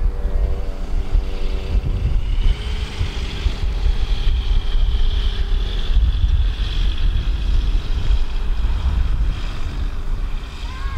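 Wind buffeting the microphone in a heavy low rumble, with a thin high whine through the middle of it.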